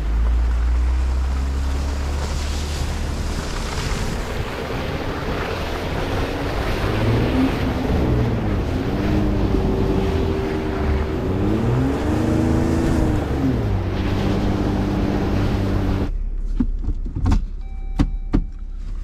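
Jeep Wrangler Rubicon driving slowly through snow: the engine running, its note rising and falling, over the noise of tyres on snow and wind on the microphone. About sixteen seconds in the sound drops suddenly to a quieter vehicle sound with a few sharp clicks.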